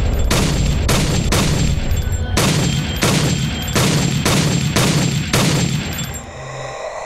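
A semi-automatic pistol fired in a rapid string of about nine shots, roughly two a second with a brief pause after the third. The shots stop about six seconds in.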